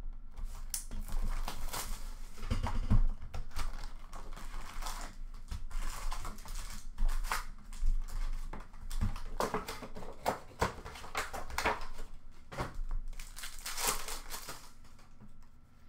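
Card box packaging and foil card packs crinkling and tearing as a hobby box of hockey cards is opened and unpacked by hand: a run of irregular rustles, crackles and rips.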